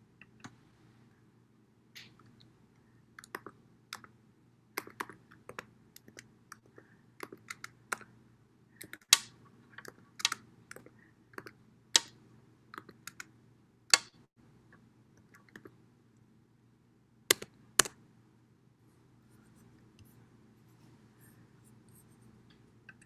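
Typing on a computer keyboard: irregular key taps and clicks, a few of them sharper and louder, over a faint steady low hum.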